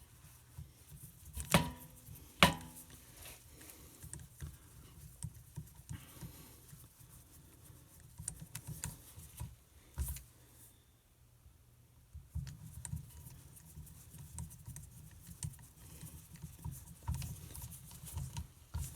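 Small metallic clicks and handling noises of a screwdriver working the cam cover screws on a 1939 Harley-Davidson ULH engine case. Two sharp, ringing metal clinks come about one and a half and two and a half seconds in, and duller knocks and tool scrapes follow.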